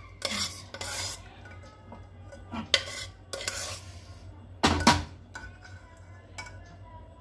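A spoon stirring and scraping through thick cooked oats khichdi in a pressure cooker, knocking against the pot in a series of separate clinks. The loudest clink comes about five seconds in.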